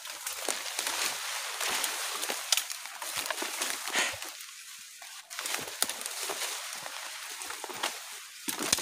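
Rustling and crackling of leaf litter and twigs underfoot in forest undergrowth: irregular clicks and snaps over a dry hiss, with one heavier thump near the end.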